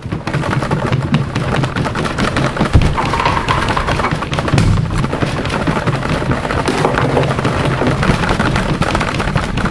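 Staged earthquake: loud, continuous low rumbling with rattling and many thuds throughout.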